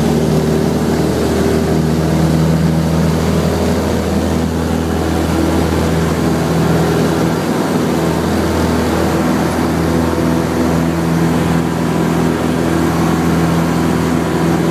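Cessna 172's piston engine and propeller running steadily, heard from inside the cabin.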